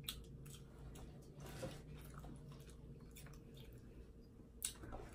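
Quiet eating sounds: boiled crab shells being picked apart by hand and food being chewed, soft scattered clicks and crackles, with one sharper click about four and a half seconds in.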